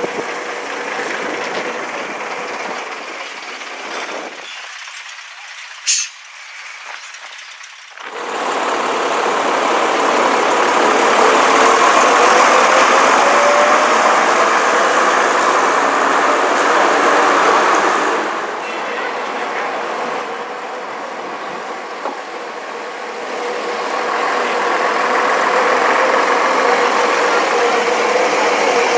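AEC Regent III RT double-decker bus passing close with its diesel engine running under load amid street traffic, a whine rising as it accelerates. A brief sharp sound about six seconds in.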